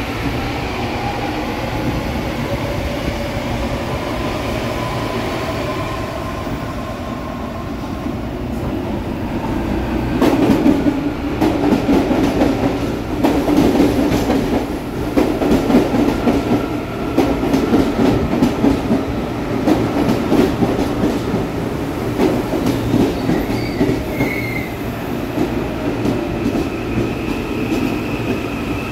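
Electric commuter trains at a platform. In the first few seconds a train pulls away with its motors whining. From about ten seconds in, another train runs along the platform close by, its wheels clattering over the rail joints with a heavy rumble and a steady whine.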